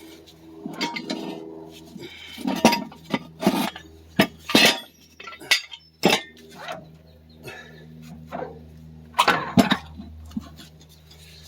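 Metal tools and parts clinking and knocking irregularly while a tractor's front axle is worked on, a dozen or so sharp hits, over a steady low hum.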